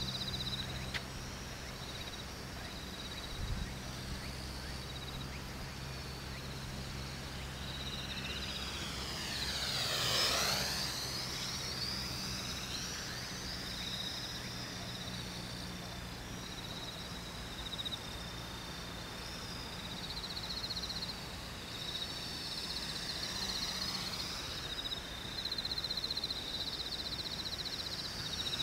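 Small electric quadcopter (X400) flying, its motors and propellers buzzing steadily. It gets louder and sweeps in pitch as it passes close by about ten seconds in, and again at the end.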